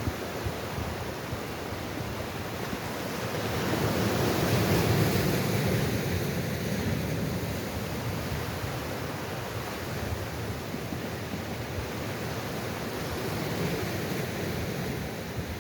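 Sea waves washing in, a steady rushing wash that swells to a peak about four seconds in and then eases back.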